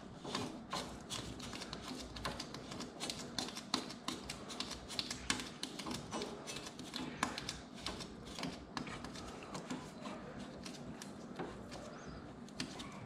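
Light, irregular clicking and tapping, several times a second, from hands adjusting a Tein Street Basis Z coilover by hand: turning its threaded lower ring and working a tape measure against the strut to raise the ride height.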